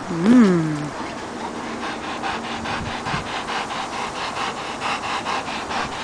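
A Rottweiler gives one short whine that rises and falls, then pants fast and steadily, about four to five breaths a second.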